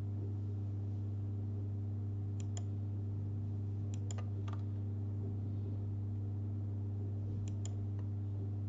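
A steady low hum with a handful of computer mouse clicks, several in quick pairs, about two and a half, four and seven and a half seconds in. The clicks come as wall points are placed in Revit.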